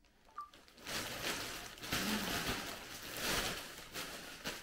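A plastic parcel mailer rustling and crinkling as it is handled and opened. The rustling starts about a second in and stops near the end.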